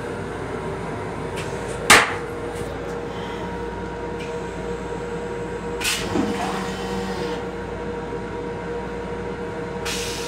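Toilet seat being lowered onto the toilet of an M7 railcar: a sharp knock about two seconds in, the loudest sound, and another around six seconds, followed by a smaller click near the end. Under them runs the steady hum of the railcar.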